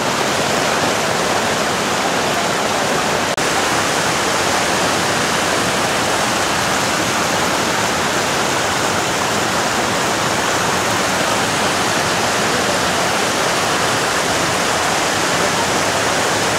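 Roaring River white water rushing over boulders at a waterfall: a loud, steady roar of falling and splashing water.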